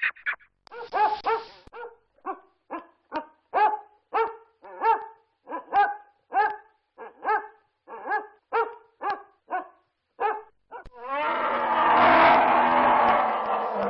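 Basset hound barking over and over, about two deep barks a second. About eleven seconds in it gives way to a loud, rough animal roar.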